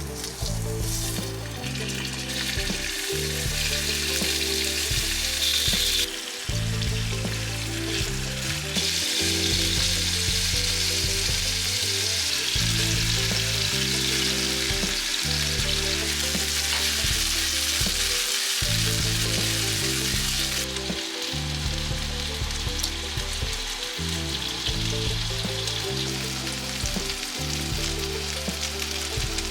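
Food sizzling as it fries in a pan, a steady hiss that shifts in strength abruptly a few times. Soft background music plays underneath.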